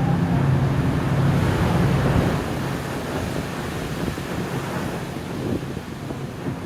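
Wind buffeting the microphone over the rush of water and the steady low hum of the Royal Princess harbour cruise boat's engine; the hum fades about two seconds in, leaving mostly wind and water noise.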